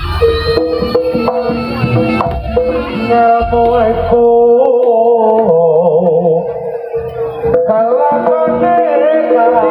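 Live barongan (jaranan) gamelan music: hand-drum beats and a wavering melody line over a held tone. The low drum and gong sounds drop out about four seconds in.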